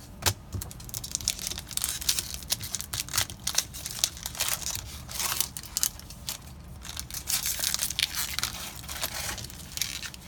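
Foil wrapper of a Magic: The Gathering Dominaria booster pack crinkling and rustling as it is handled and the cards are taken out, a dense run of small crackles.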